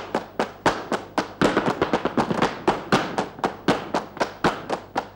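Flamenco palmas (hand-clapping) mixed with the dancer's heel-and-toe footwork on the stage floor: a rapid, uneven run of sharp claps and stamps.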